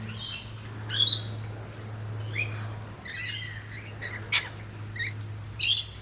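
A feeding flock of rainbow lorikeets and manorinas calling: scattered chirps, with two loud, shrill screeches about a second in and near the end, over a steady low hum.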